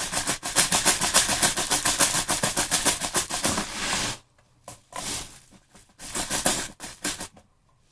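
6 mm plastic airsoft BBs pouring into a speed loader, a fast dense rattle that stops about four seconds in, then a few short rattles as the last BBs go in.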